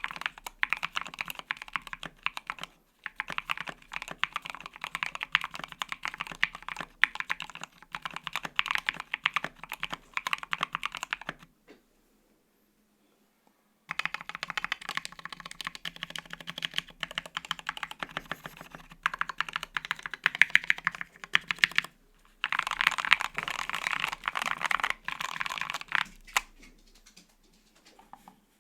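Fast typing on a Nibble 65% custom mechanical keyboard with lubed Tealios V2 linear switches on an FR-4 plate and no plate or case foam: dense runs of keystroke clacks. It stops for about two seconds near the middle, with shorter breaks elsewhere, and thins out near the end.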